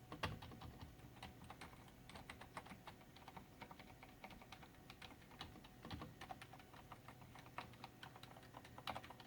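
Medium-force typing on a Filco Silent S mechanical keyboard with Cherry MX switches: a quick, quiet run of soft key clicks.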